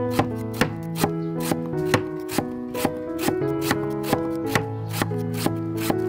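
A cleaver chopping fruit on a wooden cutting board, about two quick strokes a second, with background music.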